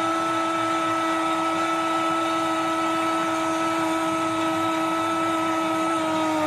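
A football commentator's drawn-out goal call, one long note held steady and starting to slide down in pitch near the end as the breath runs out, over a steady hiss of stadium crowd noise.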